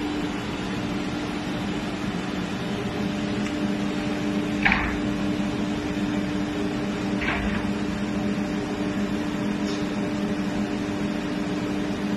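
Automatic-loading CNC router and its equipment running with a steady hum, broken by two short hisses of air, about four and a half and seven seconds in, from the pneumatic suction-cup loader.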